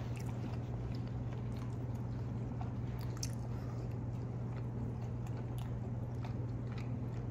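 A person chewing a mouthful of beef stew and rice, with a few faint mouth and spoon clicks, over a steady low hum.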